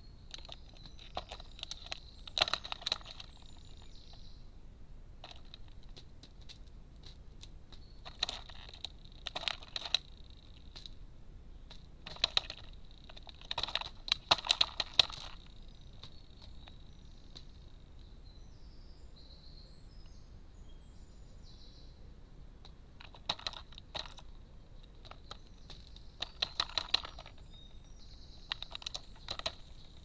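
Carrion crow pecking at walnut halves on a feeder tray: clusters of quick, sharp taps and clicks of beak on shell, a second or two at a time, several times over.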